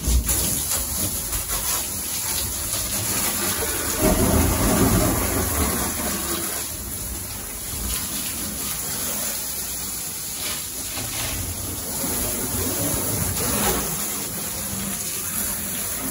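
Water from a garden hose spraying and splashing onto the bare aluminium walls and floor of a stripped truck cab, rinsing it out. It is strongest for a couple of seconds about four seconds in.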